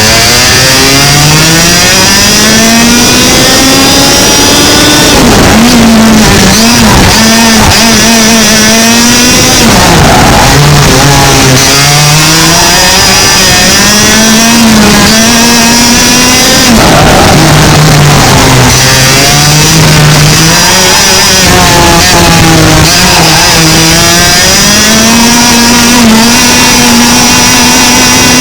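Onboard sound of a 100cc two-stroke kart engine being driven hard around a track. Its pitch climbs steadily along each straight and drops sharply as the kart slows for a corner, repeating several times.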